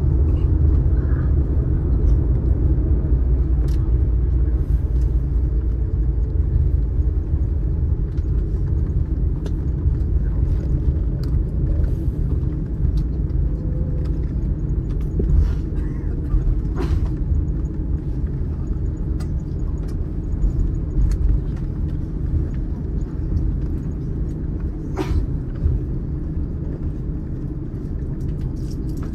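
Cabin noise of an Airbus A350-900 taxiing after landing: a steady low rumble from the engines at idle and the aircraft rolling along the taxiway, slowly easing, with a few faint clicks.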